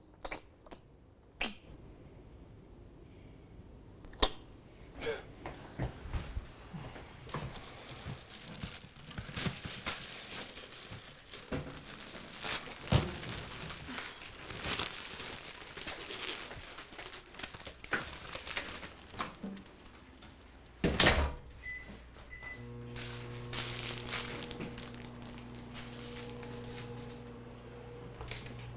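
Kitchen handling noises of knocks, clicks and crinkling as microwave popcorn is got ready. The microwave door shuts with a thunk about two-thirds through, two short keypad beeps follow, and then the microwave oven starts running with a steady low hum.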